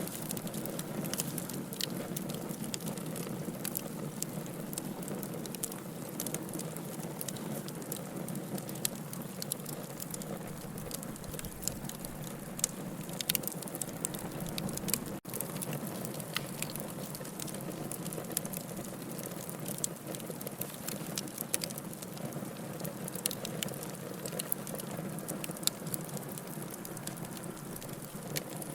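Fire in a fireplace crackling: irregular sharp pops and snaps over a steady low rush of flame. The sound cuts out for an instant about halfway through.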